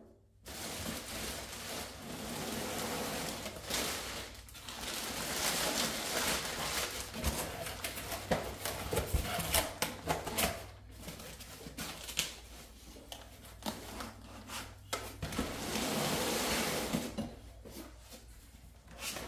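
Crinkling and rustling of a clear plastic bag and packing foam being handled, in long stretches broken by many short clicks and knocks.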